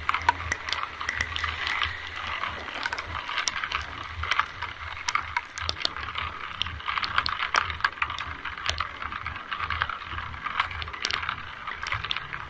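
Rain falling: a steady hiss with many sharp, irregular drop ticks on nearby surfaces, over a low rumble.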